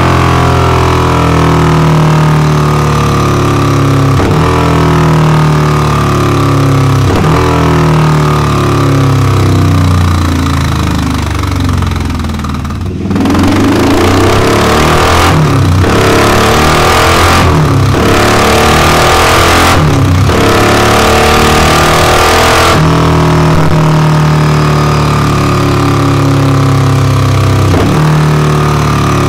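Yamaha XVS1100 Dragstar's V-twin running on a dyno through Delkevic 22-inch stainless steel bull-nose exhausts. It holds a steady note, drops away briefly about 12 seconds in, then runs harsher with a rushing hiss for about ten seconds before settling back to the steadier note.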